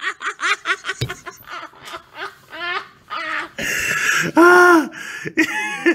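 A man laughing hard in choppy bursts, with a breathy wheezing stretch and one long drawn-out laugh about four and a half seconds in.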